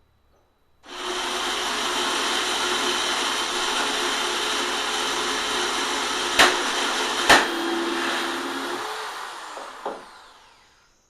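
Electric motor switched on and running at full speed with a steady whine and rush, two sharp knocks about six and seven seconds in, then switched off and coasting down with a falling whine near the end.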